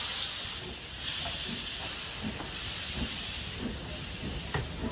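Steam hissing steadily from an LMS Coronation class Pacific steam locomotive, easing off over the first second from a louder release.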